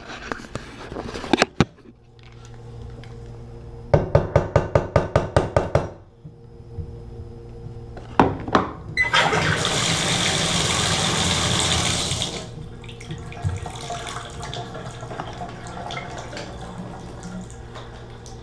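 Water running from a bathtub faucet, loud for about three seconds and then dropping to a faint flow. Earlier, about two seconds of rapid clicking, roughly five a second.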